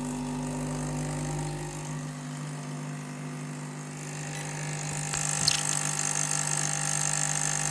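ECM Puristika espresso machine's pump running steadily at the start of a shot, a low hum. About halfway through, a high hiss joins in.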